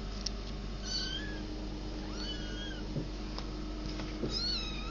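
Kittens mewing: three short high-pitched mews, about a second in, midway and near the end, over a steady low hum.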